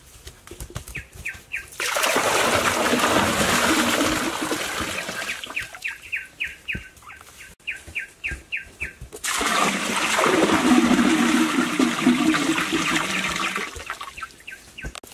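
Water poured from bamboo tubes gushing and splashing into a small pool, in two long pours, the second starting about nine seconds in. Between the pours a bird calls in quick runs of short, evenly spaced notes.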